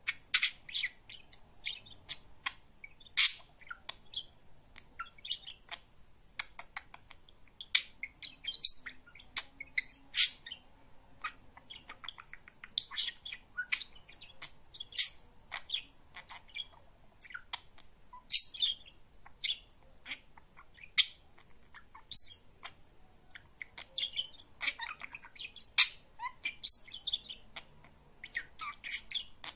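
Budgerigar chattering: a run of short, high chirps and clicks, with louder calls every second or two.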